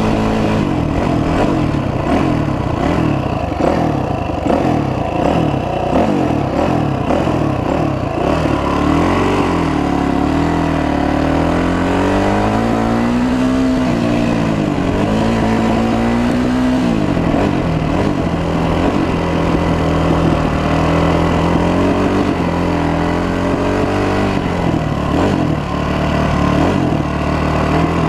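Honda 450 dirt bike's single-cylinder four-stroke engine running under way, heard from on the bike, its pitch climbing and dropping with the throttle, with a clear fall and rise about halfway through.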